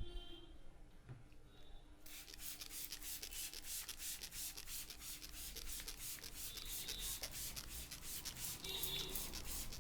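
Hands rubbing briskly through the hair on a scalp, a rapid, even run of rustling strokes about five a second that starts about two seconds in and stops just before the end.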